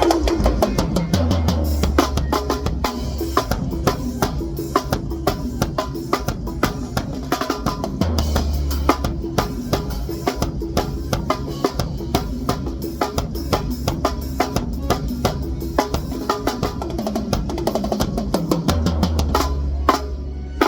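Drum kit played continuously in a fast, busy groove of bass drum, snare and cymbal hits, over music with sustained low bass notes.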